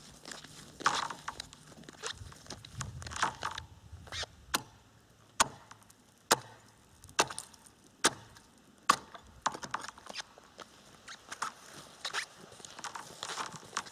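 A hatchet chopping into thin new ice, about 2.5–3 cm thick, to open a fishing hole: a run of about six sharp strikes roughly a second apart in the middle. Before and after them, softer crunching and scuffing of rubber boots on the ice.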